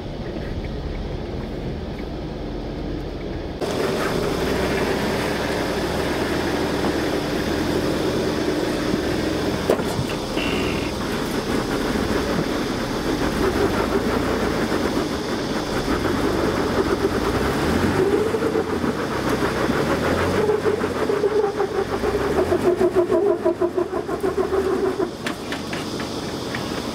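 Jeep Wrangler JK Rubicon's engine revving up and down under load as it crawls up a rock step, its pitch rising and falling and growing louder over the last several seconds.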